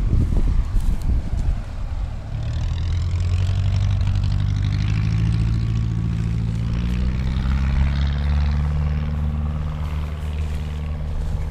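Wind buffeting the microphone, then a single-engine propeller plane taking off: its piston engine and propeller drone steadily at full power and rise a little in pitch about halfway through.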